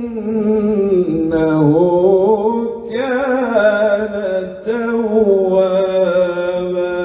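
A man's solo Quran recitation (tilawah), chanted in long, ornamented lines of held and wavering notes and amplified over a public-address system. There are short breaks for breath about three seconds in and again at about four and a half seconds.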